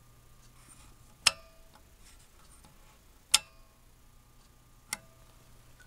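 Mains power transformer of a 1981 Mettler scale, energized, giving a faint, low steady hum. Three sharp clicks, the loudest sounds, come about a second in, past the three-second mark, and near the end.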